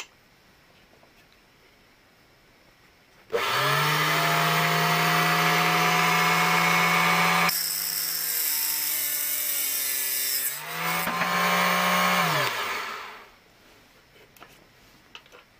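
Proxxon KG50 mini cutoff saw switched on and running up to a steady motor hum. About halfway through, the cutting disc bites into a small screw for about three seconds, with a loud hiss as the motor pulls down under the load. It then runs free again before being switched off and winding down.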